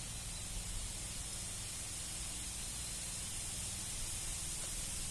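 A steady hiss with a low rumble beneath it, even throughout, with no distinct calls or knocks.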